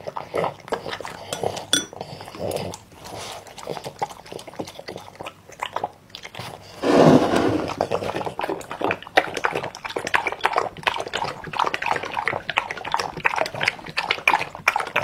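French bulldog eating broth and noodles from a ceramic bowl: wet mouth smacks and chewing at first, a louder noisy slurp about seven seconds in as it puts its face in the bowl, then quick, steady lapping and slurping.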